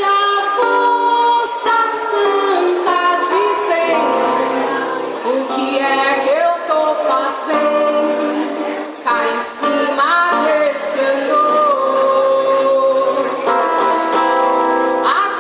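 Live music: a woman singing a melody over plucked-string accompaniment.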